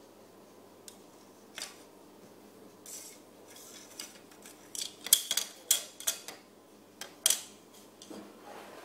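Plastic sunglasses clicking and tapping against a hard tabletop as they are set down and their arms opened out: a string of short, sharp clicks, sparse at first and then thicker and louder past the middle.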